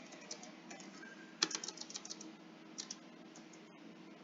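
Keys typed on a computer keyboard: a few scattered taps, then a quick run of keystrokes about a second and a half in and one more a little later.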